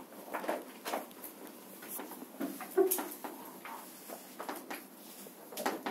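Chalk tapping and scraping on a blackboard as lines are drawn: a scattering of short, irregular taps and strokes.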